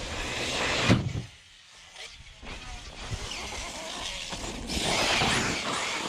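Arrma Talion 6S RC car's brushless electric motor whining and revving as the car runs and jumps, with a sudden drop in sound about a second in and a louder swell near the end.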